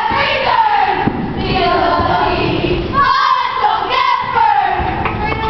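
Many young girls' voices yelling together in drawn-out, chant-like calls, with fresh loud shouts about three and four seconds in, over the noise of a crowd.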